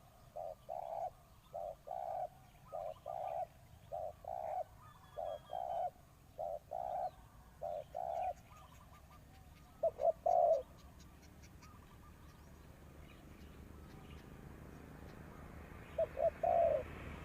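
Spotted dove cooing: short low coos repeated about every second and a quarter, then, after a break, two more phrases about ten and sixteen seconds in. A steady hiss grows louder near the end.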